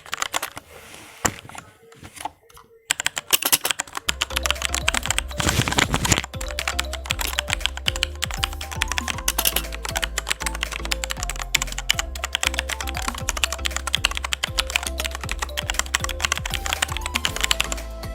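Fast typing on a Gigabyte Aorus K1 mechanical keyboard with Cherry MX Red linear (non-tactile) switches: a quick run of key clacks without a switch click. Background music with a steady bass line comes in about four seconds in and plays under the typing.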